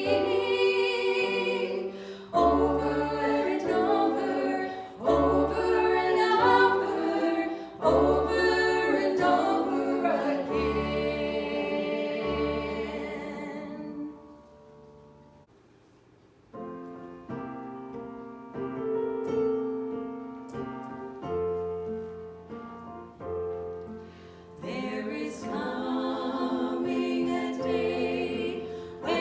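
Congregational worship song: voices singing together over a keyboard, fading almost to nothing about halfway through before soft held keyboard chords come in and the singing builds up again near the end.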